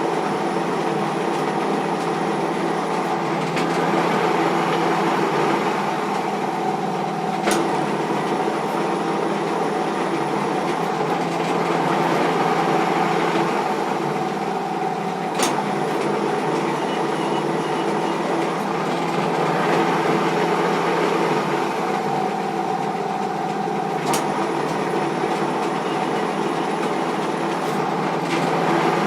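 Small metal lathe running steadily with a tool cutting in repeated passes. The cutting noise swells and fades about every eight seconds, and a sharp click comes at the end of each of three passes.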